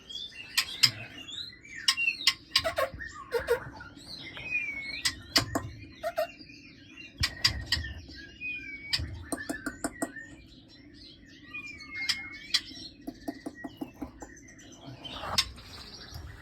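Small caged songbirds chirping and calling in short gliding notes, with sharp clicks and knocks scattered through, as of handling around the cage or nest box.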